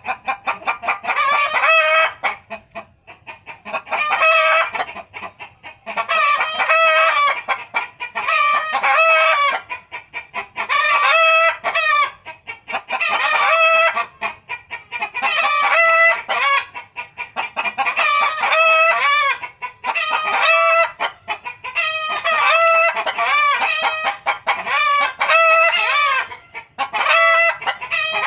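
Chicken clucking: loud, repeated runs of quick, pitched calls, one burst about every two seconds.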